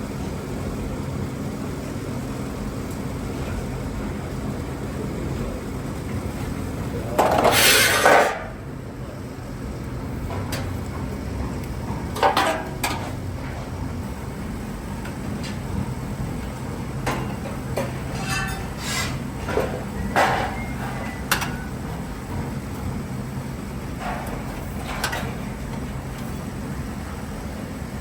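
Metal workshop sounds: a steady low machine hum with scattered metallic clanks and clinks of sheet steel being handled and struck. A louder, harsher burst lasts about a second, some seven seconds in.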